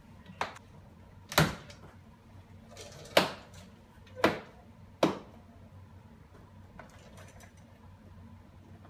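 Plastic door trim panel of a 2004 Mitsubishi Galant being pushed and knocked into place on the door, its retaining clips seating: five sharp knocks over about five seconds, the loudest about three seconds in.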